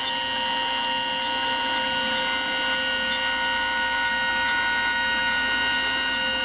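MillRight Carve King CNC router's spindle running steadily with a high whine, its ball-nose bit carving walnut.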